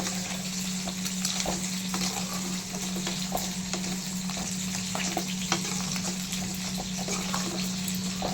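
Crab pieces bubbling and sizzling in a kadai of spiced water while a spoon stirs and scrapes through them, with scattered short clicks from the spoon against the pan as the ground coconut-pepper masala is mixed in. A steady low hum runs underneath.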